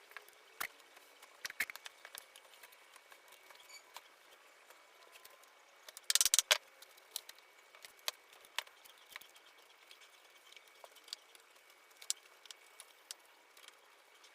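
Light clicks, taps and small knocks from working wooden shutter parts and hand tools at the bench, scattered irregularly, with a louder burst of knocks about six seconds in.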